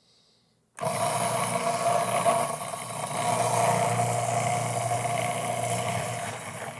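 Food processor motor switched on about a second in, running steadily while its shredding disc grates carrots pushed down the feed tube: a loud, kind of noisy whirring hum with a grating rasp, easing off a little near the end as the carrots are used up.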